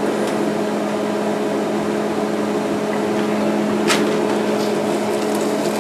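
Steady electric hum of the Grainfather's recirculation pump running. A brief plastic rustle or tap comes about four seconds in.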